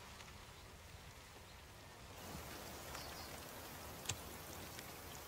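Faint steady hiss, with one sharp click about four seconds in as a cigarette is being lit.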